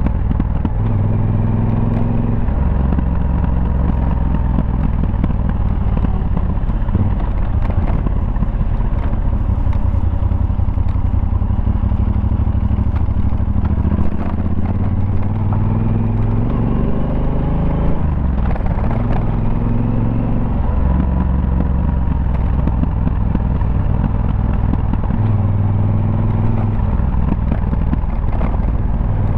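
Yamaha Super Tenere's parallel-twin engine heard onboard, its note stepping up and down in pitch again and again as the rider opens and closes the throttle through a run of bends.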